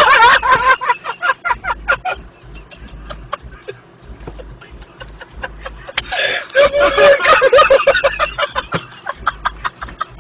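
People laughing hard in quick rhythmic bursts, getting louder and higher about six seconds in.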